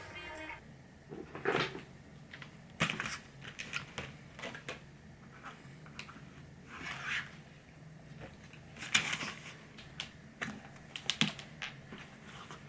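Irregular taps, clicks and rustles, with a few louder knocks scattered among them.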